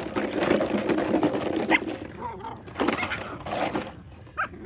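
Belgian Malinois puppy growling as it tugs and shakes a rag, a rough rasping sound for the first couple of seconds, then a few shorter sounds and a brief higher-pitched yip near the end.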